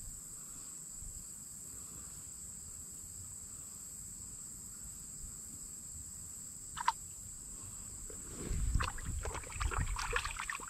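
Water sloshing and splashing in a shallow creek, in a burst of irregular splashes in the last couple of seconds. A steady high-pitched insect drone runs underneath.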